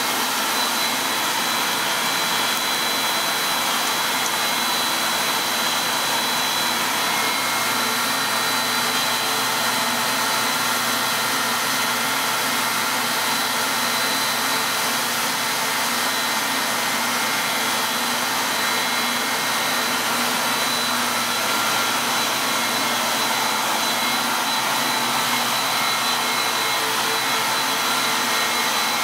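Two-stage plastic recycling extruder line running: a loud, steady, even machine noise from its motors and gearbox, with a thin high whine held constant throughout.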